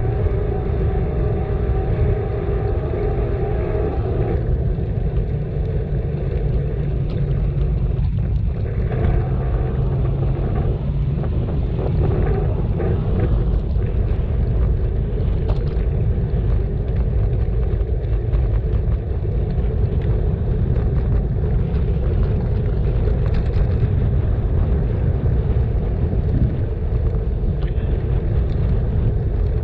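Steady low rumble of a bicycle ride: wind on the microphone and tyres on the road. A faint hum comes in over it for the first few seconds and again around ten seconds in.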